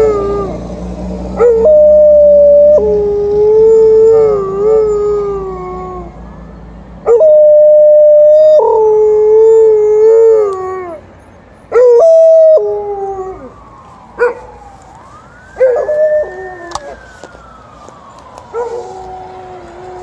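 Alaskan Malamute howling in long held notes, in several bouts, her pitch stepping up and down and drooping at the end of each howl. She is answering an ambulance siren; a fainter siren wail rises and falls behind her howling in the later part.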